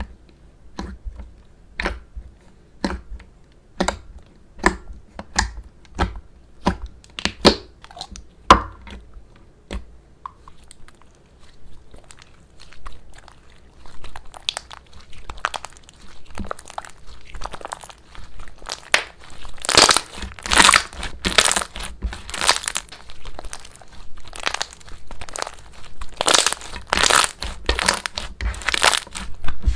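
Slime being handled close to the microphone, giving crisp clicks and crackles. At first the clicks come singly, about one a second; from about halfway on they run into denser, louder crackling.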